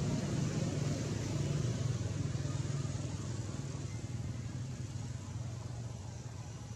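Steady low hum of a running motor vehicle engine, slowly fading over the last couple of seconds.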